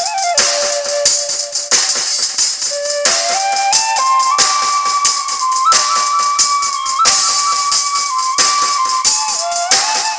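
Bamboo flute (bansuri) playing a devotional song melody over a steady tambourine and shaker rhythm. The tune climbs stepwise about three seconds in, holds a high note ornamented with quick trills, then steps back down near the end.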